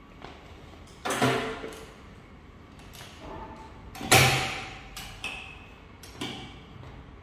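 Several clunks and knocks from a metal lithium battery cabinet and its heavy cable lugs being handled, four in all, the loudest about four seconds in with a brief metallic ring.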